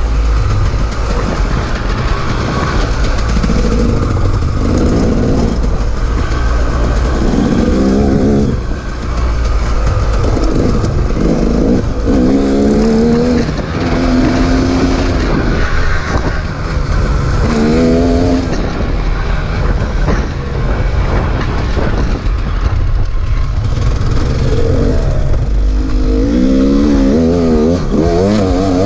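KTM 300 two-stroke dirt bike engine being ridden on a trail, revving up and down again and again as the throttle is opened and shut, over a steady low rumble.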